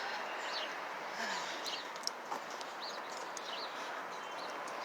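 Small birds chirping: short, high, arched notes every so often over a steady outdoor hiss.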